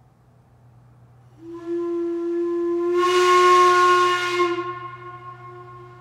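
4-inch Crane whistle blowing one long note, starting about a second and a half in. It swells in the middle with a strong rush of hiss over the tone, then eases off to a softer, lingering tone near the end.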